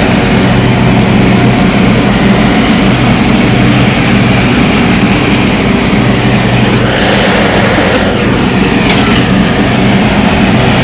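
Riding lawn mower engine running steadily at full throttle with the mower blades engaged, cutting grass as it drives.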